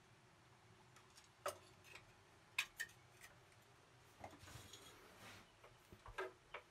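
Faint, scattered clicks and light knocks of hands handling a stopped diesel engine while its oil level is checked, with a soft rustle about halfway through.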